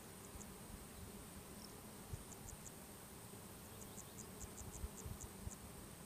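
Insects in a flowering lavender field: a steady low buzz of honeybees working the flowers, with several quick runs of short, high chirps. A few low thumps of wind on the microphone come mostly in the second half.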